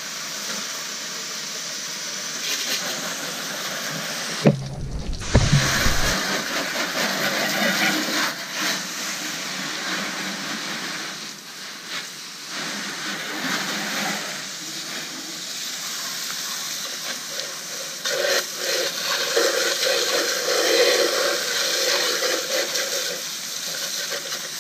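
Garden hose spray nozzle jetting water onto a pickup truck's body and wheel: a steady hissing spray with splashing, its tone shifting as the stream moves over the truck. Two low thumps about five seconds in.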